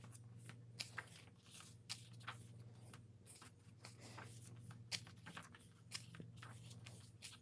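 Pages of a K-pop album photo book being turned and handled: faint, repeated paper rustles and flicks. A low steady hum runs underneath.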